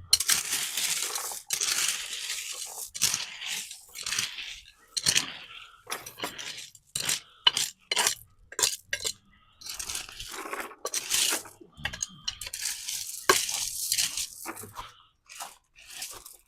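Handling noise of building work: irregular scraping and rustling with clinks, and a quick run of sharp knocks in the middle.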